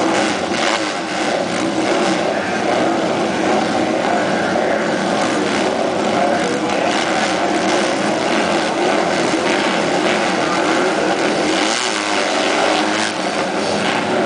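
Several dirt-track racing motorcycles running together, a steady loud engine drone with no breaks.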